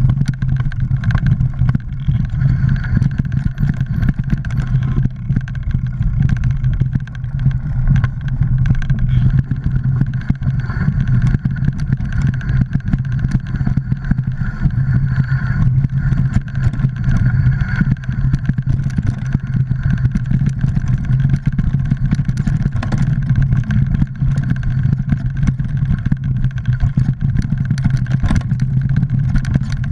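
Mountain bike riding over a rocky, leaf-covered forest singletrack, heard through a GoPro: a steady loud rumble with a constant stream of small knocks and rattles from the bike and tyres.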